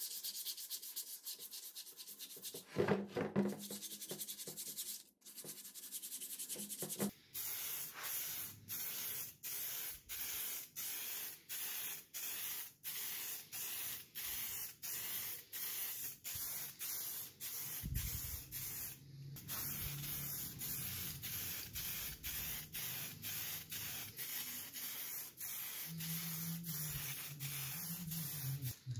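Sandpaper rubbed by hand over the cast-iron sewing machine body, a dry scratchy scuffing with one louder scrape about three seconds in. Then an aerosol spray can of primer hisses in short regular bursts, about three every two seconds.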